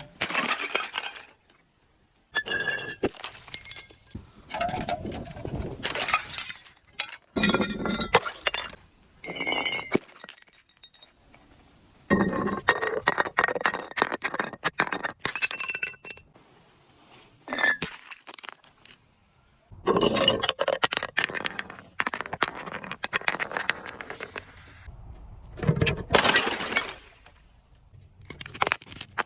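Glass bottles being broken and crushed: a long series of cracking, crunching bursts with short pauses between them, many with the clink and brief ringing of glass shards.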